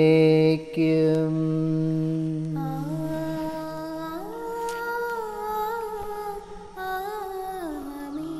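Liturgical chant: a man's voice sings the last word of a doxology on a long held note. About two and a half seconds in, a slow melody of long held notes follows, gliding up and down between pitches.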